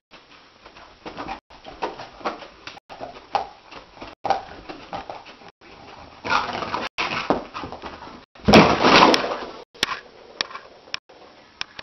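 A dog dreaming in its sleep, giving short muffled whimpers while its legs paddle. About halfway through comes a louder, rougher burst of noise, and a couple of seconds later another, the loudest. Both come as the dog wakes and gets to its feet.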